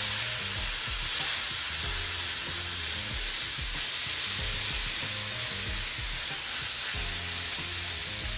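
Beef chuck roast sizzling steadily in hot olive oil in a cast iron skillet, seared on its freshly flipped side.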